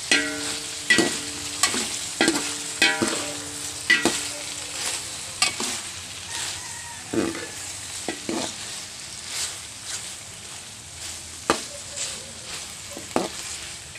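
A metal spoon knocking and scraping against a metal pot while stir-frying carrots and meat, over a steady sizzle. The knocks come quickly for the first four seconds, the pot ringing after each, then turn sparser.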